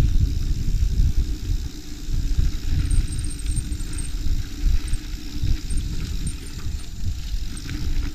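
Mountain bike riding along a dirt trail: wind buffeting the action-camera microphone and tyres rumbling over the ground, with faint, short high-pitched squeaks about three to four seconds in.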